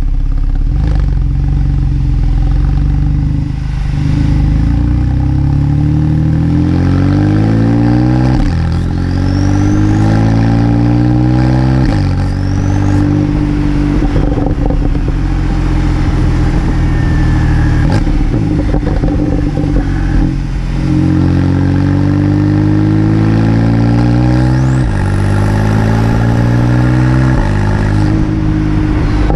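Porsche 911 (991.2) Carrera 4S twin-turbo flat-six through its sport exhaust, climbing in revs and dropping sharply four times, as the PDK gearbox shifts up under acceleration. A faint high whistle rises with the revs, the turbos spooling.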